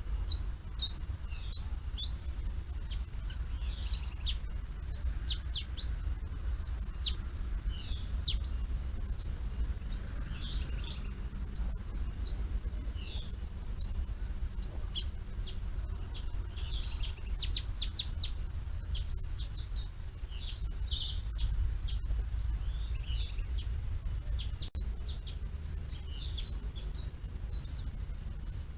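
Small forest birds chirping, many short, sharp high calls in quick succession, with a steady low rumble underneath.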